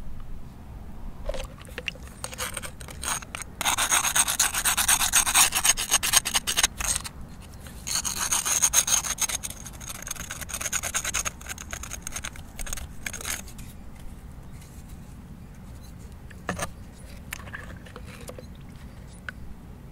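A rough stone scrubbed rapidly against a sea lion jawbone in water to clean it: a dense rasping in two long, loud spells, then lighter, scattered scraping.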